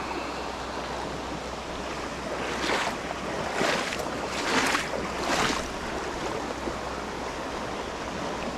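Steady rush of flowing creek water and wind. Four short swishing noises come about a second apart in the middle.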